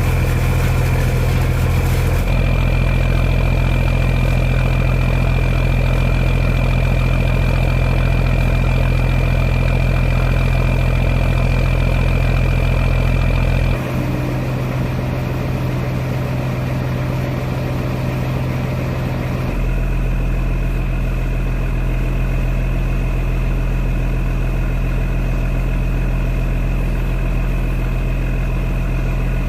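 Boat engine running steadily with a deep hum, its note shifting abruptly a few times.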